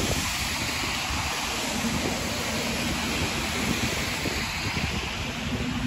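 Steady hiss of rain on a wet city street, mixed with traffic noise from the wet road, and wind buffeting the microphone low down.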